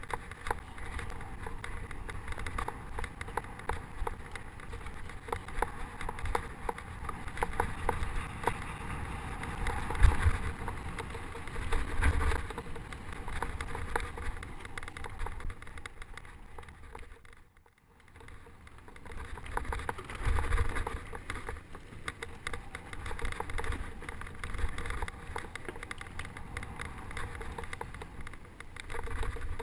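Wind buffeting a mountain-bike camera's microphone, with the rattle and clatter of the bike rolling over a rough dirt trail and sharp knocks from roots and rocks. The sound drops away almost completely for a moment about halfway through.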